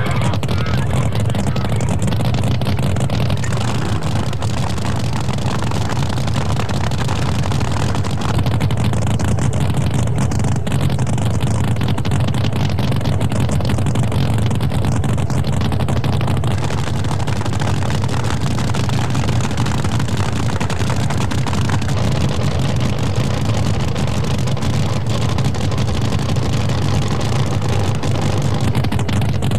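Race boat's engine running steadily at one speed, a low, even drone with no revving.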